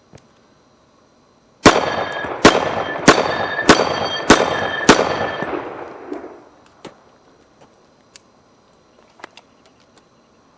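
Ruger SR-1911 Commander .45 ACP pistol firing six shots in steady succession, about two shots a second, with the echo trailing off after the last shot.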